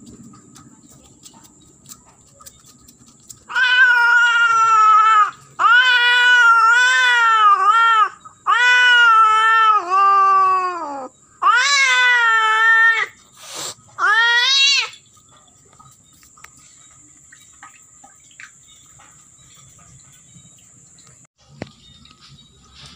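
Female domestic cat in heat caterwauling while a tom mates her: a string of five or six loud, long, wavering yowls that rise and fall in pitch. The yowls start about three and a half seconds in and stop about eleven seconds later.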